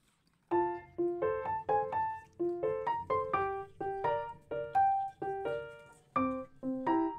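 Background piano music begins about half a second in: a light melody of separate notes, each one struck and then fading.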